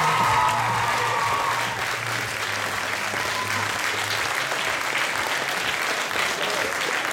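Audience applauding in a hall, with the last held notes of the song fading out in the first few seconds.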